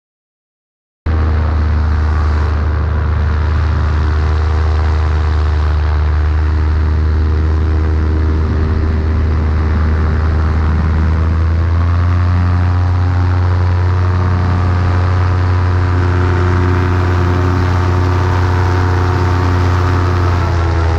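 Paramotor engine and propeller running steadily at high power, a loud drone that starts abruptly about a second in. Its pitch rises about eleven seconds in and dips and climbs again near the end.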